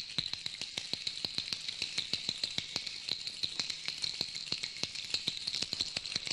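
Foot massage with small hand-held hammers beating the soles of the feet: a rapid, even patter of taps, about five or six a second, over the high steady jingle of the small bells fitted to the hammers.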